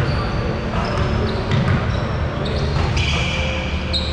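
Basketballs bouncing on a hardwood gym floor, with short high sneaker squeaks from players moving on the court, echoing in a large gym.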